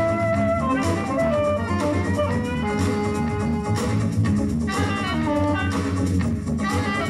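Live jazz band: two horns playing a melody line together over drums.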